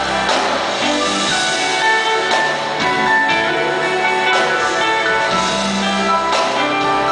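Live jazz band playing: an electric archtop guitar plays a melodic lead over keyboard and a drum kit with steady cymbal and drum strokes.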